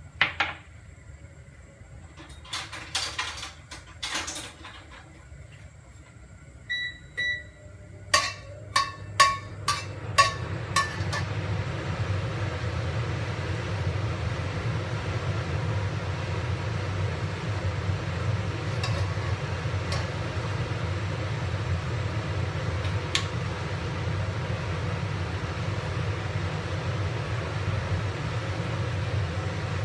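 Metal spatula knocking and clinking against a steel wok, with two short electronic beeps near seven seconds. From about ten seconds the wok settles into a steady rushing hiss as the gas burner runs under it and Sichuan peppercorns fry in the oil.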